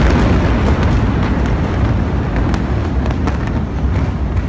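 The blast of the Tianjin chemical warehouse explosion: a loud, deep rumble slowly dying away after the shock wave has arrived, with scattered sharp cracks and pops through it.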